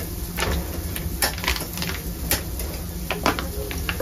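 Busy street ambience: irregular sharp clicks and clatters, about one every half second, over a steady low hum.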